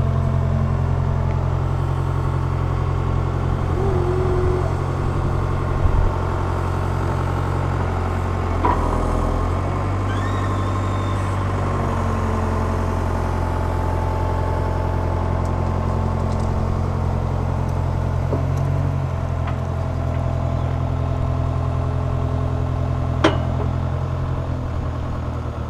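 Skid steer's diesel engine running steadily while the hydraulic grapple is worked, its pitch shifting about ten seconds in and again a little before twenty. A few sharp knocks and a brief rising whine cut through the engine.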